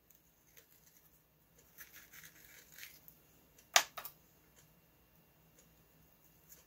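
Faint scraping and ticking of a hand deburring tool working the cut end of a small metal tube spacer, with a sharp click a little under four seconds in as a piece is set down on the bench.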